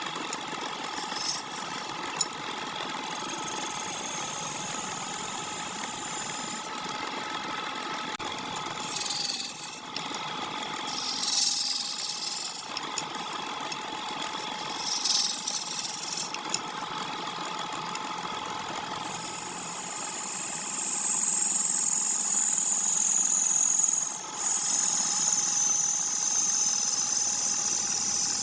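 Wood lathe running steadily while a turning tool cuts the spinning wood. There are short cuts about nine, eleven and fifteen seconds in, then a longer, louder continuous cut from about nineteen seconds.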